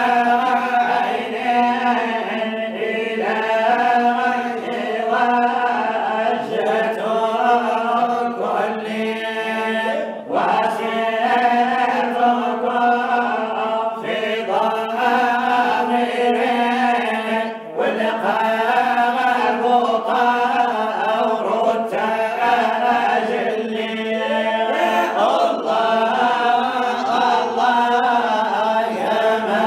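Men singing a Sufi samaa qasida unaccompanied: a lead voice ornaments the melody over a steady low held note, with no instruments.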